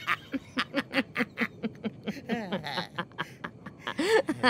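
Cackling laughter: a rapid run of short 'ha' syllables, about five a second, swelling to a louder burst near the end.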